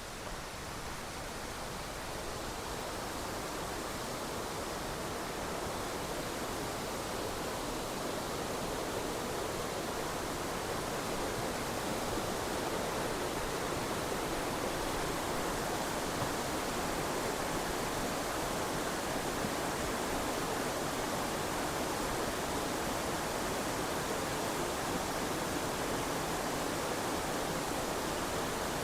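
Waterfall rushing: a steady, unbroken roar of falling water that grows slowly louder over the first several seconds, then holds.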